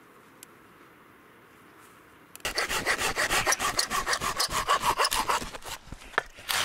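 Hand saw cutting through a piece of firewood with quick, even back-and-forth strokes. The sawing starts about two and a half seconds in, pauses briefly near the end, then resumes.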